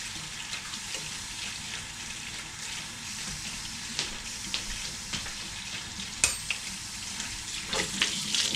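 Cold tap water running steadily into a kitchen sink as glass canning jars are rinsed, with a couple of sharp clinks about four and six seconds in.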